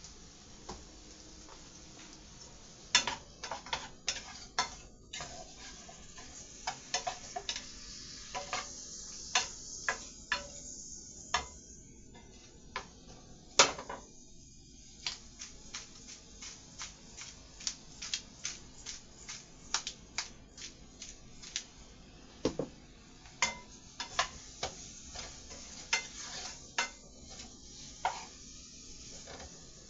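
A utensil stirring fried chicken in a pot, clacking and scraping against the pot again and again at an irregular pace, with a faint sizzle underneath. One knock about halfway through is louder than the rest.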